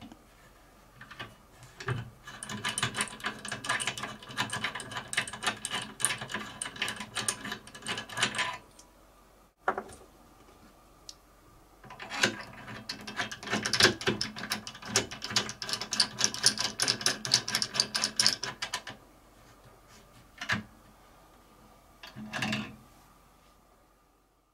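Fast metallic clicking and rattling from a drill press table clamp lever as it is worked by hand with its new steel rod extension, in two spells of several seconds each, then a couple of single knocks near the end.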